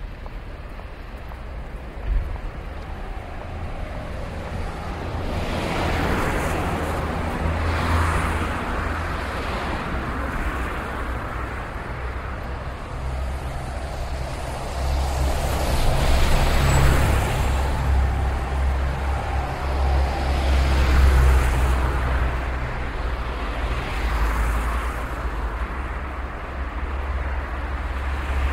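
City street traffic: cars and other vehicles passing one after another, a steady low engine rumble with repeated swells of tyre noise as each goes by. A single sharp knock sounds about two seconds in.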